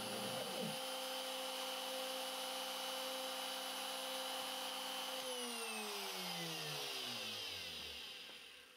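Spindle of a homemade CNC router running with its 3 mm end mill lifted clear of the wood, a steady whine. About five seconds in it is switched off and winds down in a falling whine, fading out near the end.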